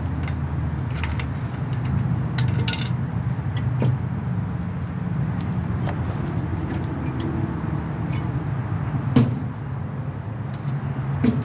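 Hand tools clinking on metal while a vehicle's driveshaft is unbolted: scattered short metallic clicks and taps, with a heavier knock about nine seconds in and another near the end, over a steady low hum.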